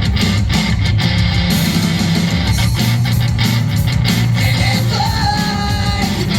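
Live heavy rock band playing loud: distorted electric guitar, bass and pounding drums with crashing cymbals, and a held high note entering about five seconds in.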